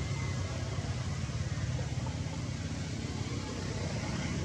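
Steady low rumble with an even hiss over it.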